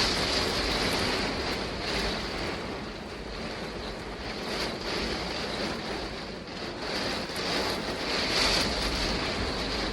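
Heavy rain and strong gusting wind of a storm, with the wind buffeting the microphone; the rushing noise swells and eases.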